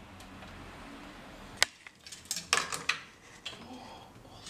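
Sharp clicks and knocks of hands and tools handling an opened Casio SK-1 keyboard's plastic case, most of them bunched a couple of seconds in.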